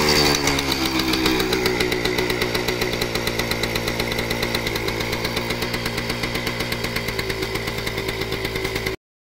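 Kawasaki KV75 mini bike's small 72 cc two-stroke single engine, revived after years of sitting. The revs drop during the first half-second and it then idles steadily with an even, rapid pulsing. The sound cuts off suddenly near the end.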